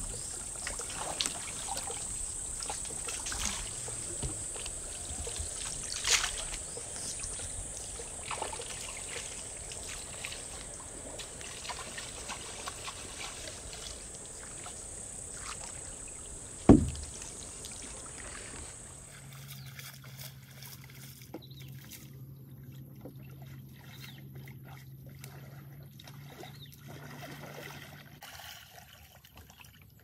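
Water sloshing and trickling, with scattered knocks and one sharp thump about 17 seconds in. A steady high hiss stops suddenly about 19 seconds in, after which it is quieter with a low steady hum.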